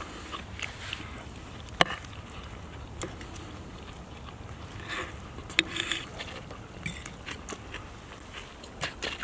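Fork and knife clinking and scraping on a ceramic plate while cutting cooked chicken: a few sharp clinks, the loudest about two seconds in, over a steady low rumble.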